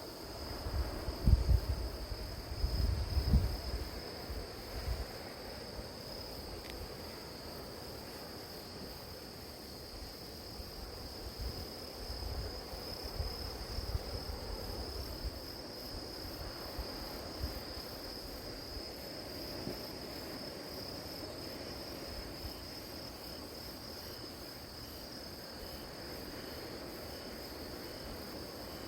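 Field crickets or other grass insects chirring in a steady, high, unbroken chorus. Low rumbles come and go underneath it, loudest near the start and again about midway.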